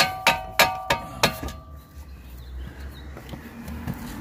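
A quick run of ringing metal clanks, about three a second, as a CV axle (half shaft) is worked by hand against the car's suspension parts; the clanking stops about a second and a half in, leaving a low rumble.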